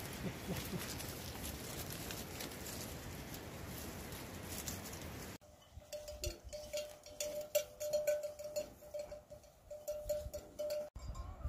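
A steady hiss of background noise, then from an abrupt change about five seconds in, a livestock bell clanking over and over with one ringing pitch until another cut near the end.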